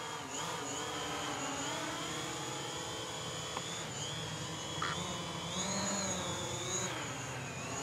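DJI Mavic Pro quadcopter's propellers whining in flight, the pitch of the whine rising and falling as the motors speed up and slow down.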